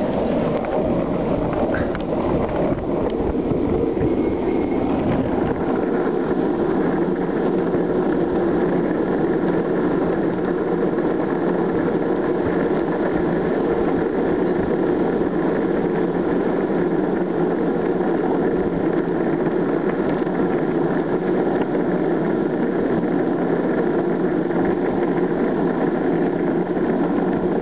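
Skateboard wheels rolling over asphalt close to the microphone, a steady, loud rumble.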